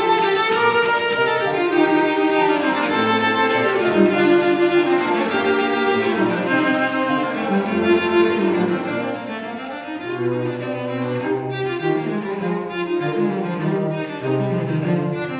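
Two cellos playing a bowed duet in sustained, overlapping notes, the lower part moving to deep notes from about ten seconds in.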